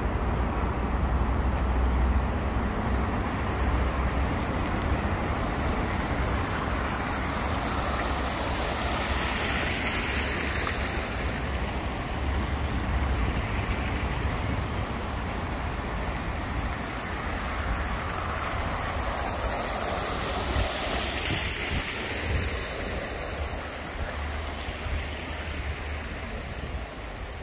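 Outdoor street ambience: a steady hum of road traffic with passing cars swelling about ten and twenty seconds in, and wind rumbling on the microphone.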